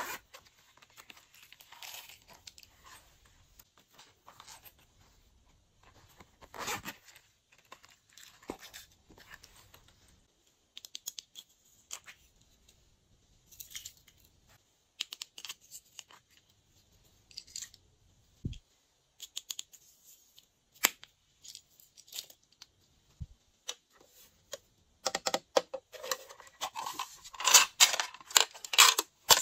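Small handling sounds: a strawberry-shaped zippered pouch being opened and sequins and confetti sprinkled onto slime in a glass dish, heard as scattered light clicks and rustles. In the last few seconds a pink plastic container is tipped over the dish, with a denser run of crinkling and clicking.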